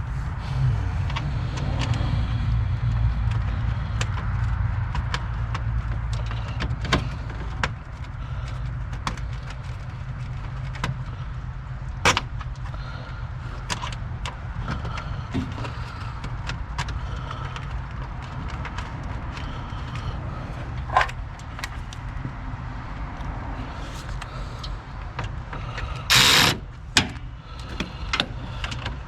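Scattered clicks and knocks of a car's radiator cooling fan assembly being fitted and fastened into place, over a steady low hum. Near the end come a few short, loud bursts of what sounds like a ratchet wrench on the mounting bolts.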